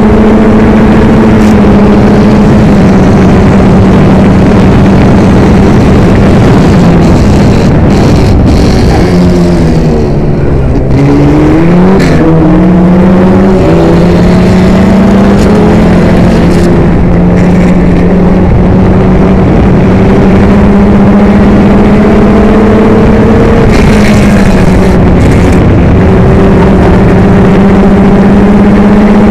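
Formula Ford racing car's 1600 cc Ford Kent crossflow four-cylinder engine, very loud from the cockpit, running hard at high revs. About ten seconds in the revs drop and then climb again in steps through the gears, with rushing air noise throughout.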